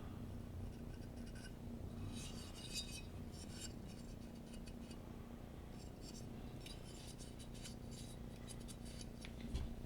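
Faint light clicks and scraping of small metal tools and parts being handled on a workbench, in scattered clusters, over a low steady hum.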